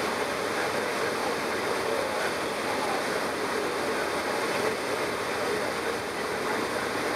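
Steady engine and propeller drone mixed with airflow noise inside the cabin of a single-engine propeller plane during its landing approach, even and unchanging throughout.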